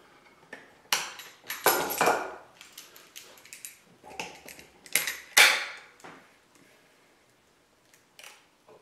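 Plywood Kant Twist clamp creaking and cracking under heavy load as its threaded wooden dowel is forced round with vise grips: a series of sharp cracks and clicks, loudest about five seconds in. The wooden thread is holding while the plywood body gives.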